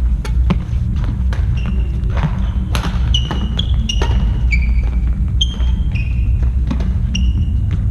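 Hammer blows, about two to three a second, each strike leaving a short metallic ring that changes pitch from blow to blow, over a steady low rumble.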